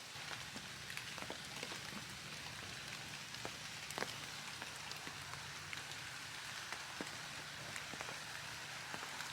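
Campfire crackling: a soft steady hiss with irregular sharp pops, one louder about four seconds in, over a low steady hum.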